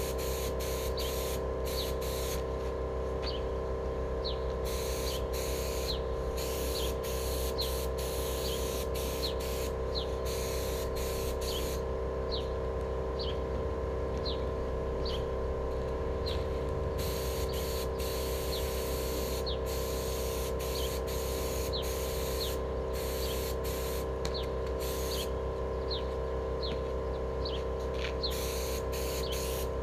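HVLP spray gun hissing in short on-and-off bursts as its trigger is pulled and released, laying acrylic enamel on steel wheels, over a steady mechanical hum.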